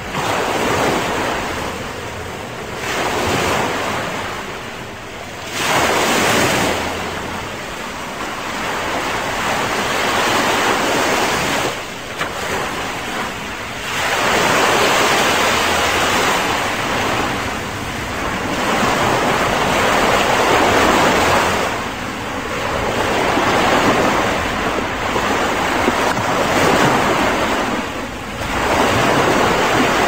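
Small ocean waves breaking and washing up a sandy beach: a continuous surf hiss that swells every few seconds as each wave breaks and runs up the sand, then eases back.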